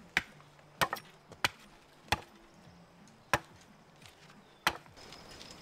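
Hatchet chopping into a green mimosa pole: six sharp, unevenly spaced strikes of the blade into wood.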